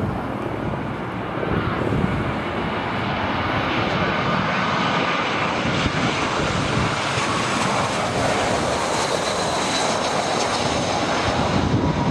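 Airbus A320 jet engines on final approach, a rushing whine that grows louder over the first few seconds as the airliner passes low and close. Gusty wind buffets the microphone underneath.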